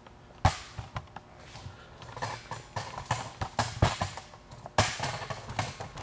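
Hard footsteps on a concrete workshop floor mixed with irregular knocks and clacks, the loudest clack coming just before five seconds in.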